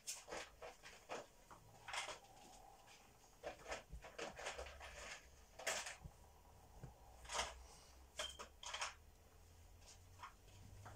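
Faint, irregular clicks and knocks in a quiet room, over a low hum.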